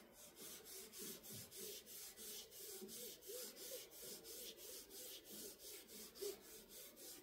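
Acetone-soaked cotton wool rubbed back and forth over the printed legend on a diamond-painting canvas, wiping the ink off; a faint, rhythmic scrubbing of about three strokes a second.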